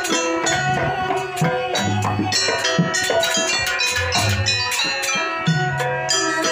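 Jaranan accompaniment music: drums and tuned metal percussion playing a busy, driving rhythm over pitched melody lines, with deep bass notes held for about half a second every second or two.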